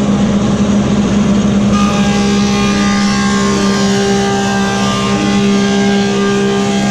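Woodmaster 725 planer with a helical cutterhead running with a steady hum. About two seconds in, a board engages the cutterhead and a steady whine of several tones joins the motor noise as the wood is planed.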